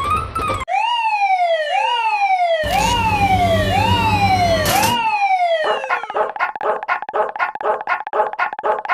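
An animated level crossing's alarm sound effects. First a siren-like wail repeats about five times in four seconds, each rising quickly and falling more slowly, with a low rumble joining halfway through. Then, about six seconds in, it switches to a rapid, evenly pulsing ringing tone like a crossing bell.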